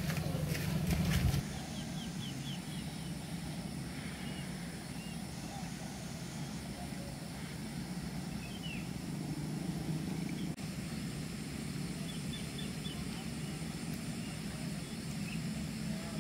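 Open-air ambience: a steady low wind rumble with faint bird chirps now and then.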